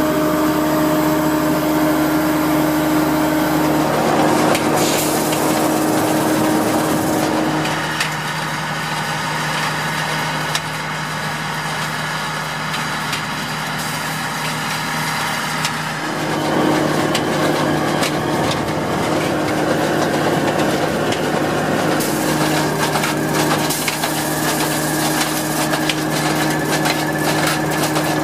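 Converted Agrifac ZA-215 beet harvester running steadily, its engine drone under the busy clicking and clattering of a Ferrari Futura Twin 12-row automatic transplanter feeding seedlings into the soil. The drone drops back for a stretch in the middle, and the clicking grows busier near the end.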